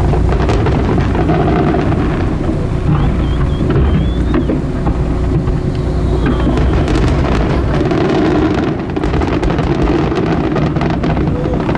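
Fireworks bursting overhead, many sharp cracks and bangs in quick succession with a few whistling glides, over a steady low rumble of wind on the microphone and the boat underway.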